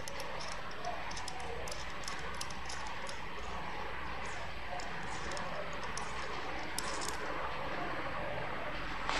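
Light, scattered clicks and taps of small metal atomizer parts being turned over and fitted together in the fingers, stopping about seven seconds in, over a steady background hiss.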